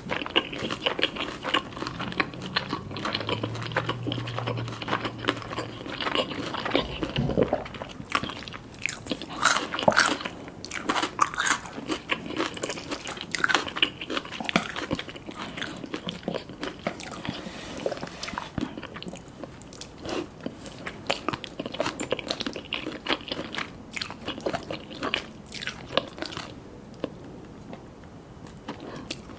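Crisp bites and close-up chewing of crunchy Korean fried chicken, many irregular crackling crunches coming thick and fast for stretches, then thinning out.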